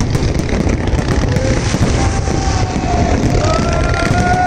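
Fireworks display: a continuous low rumble with scattered crackles and pops. From about halfway through, a few held, slightly wavering tones sound over it.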